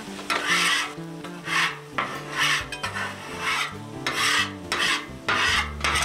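Steel spatula scraping across the hot steel plate of a Blackstone flat-top griddle in about seven rasping strokes, roughly one a second, cleaning the cooking surface as he goes.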